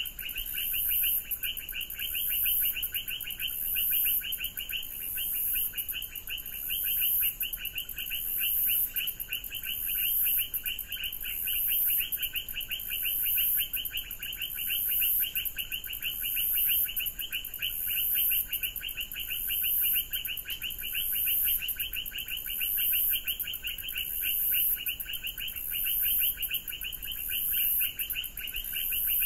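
Rainforest animal chorus: a dense, rapidly pulsing trill of calls held steady throughout, over a shrill high layer that swells and fades about every two seconds.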